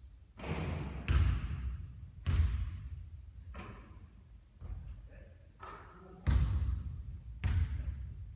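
Basketball bouncing on a court: a string of heavy, separate bounces, several close together, each with a short ring-out. Two brief high squeaks cut in, one at the start and one about three and a half seconds in.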